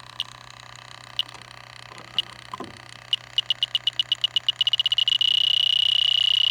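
Electronic refrigerant leak detector beeping: slow, steady high-pitched ticks about once a second, then speeding up from about three seconds in and running together into a continuous alarm tone as the probe reaches R22 refrigerant leaking from the corner of the evaporator coil.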